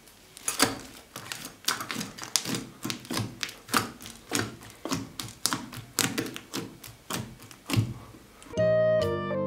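Fingers poking and pressing bead-speckled slime in a glass dish: a run of sharp, sticky clicks and pops, several a second, ending shortly before music comes back in.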